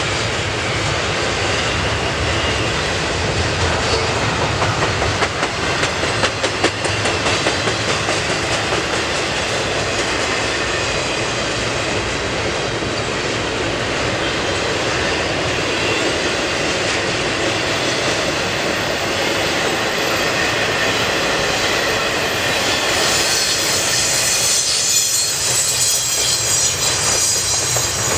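CN double-stack intermodal freight train rolling steadily past: the constant rumble and rattle of loaded container well cars, with the clickety-clack of wheels over rail joints.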